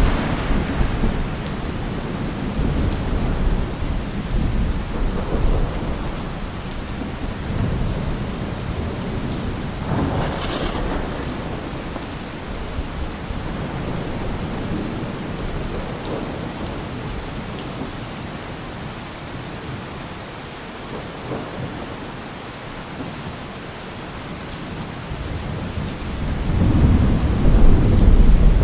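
Steady heavy rain with rolling thunder: a rumble fading at the start, a sharper crack about ten seconds in, and a deep rumble building up near the end.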